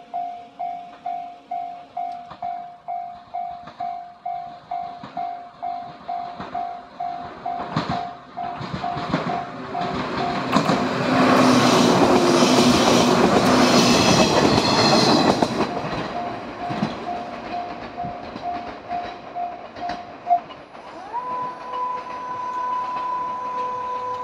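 Japanese level-crossing warning bell ringing about twice a second while a train passes over the crossing, its wheels clattering over the rail joints, loudest about halfway through. The bell stops a few seconds after the train has gone, and a steady tone sounds for the last few seconds.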